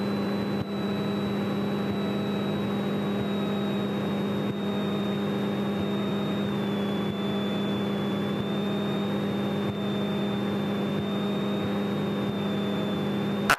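Single-engine piston airplane's engine and propeller running steadily at low power, heard from inside the cockpit, with a faint steady high whine over the drone. One sharp click right at the end.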